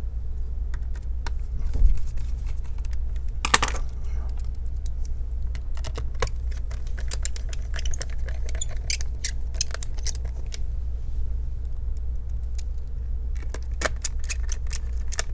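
Small clicks and light metallic ticks of hand tools and small parts being handled on an open laptop during reassembly, irregular and thickest in the middle and near the end, over a steady low hum.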